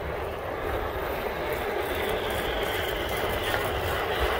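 Wind buffeting the microphone over a steady rush of road noise while riding along a paved road. A faint whine rises slowly in pitch through the second half.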